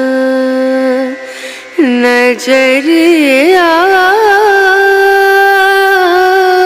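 Background song with a singer: a long held note breaks off about a second in, then the voice climbs through wavering, ornamented turns to another long held note.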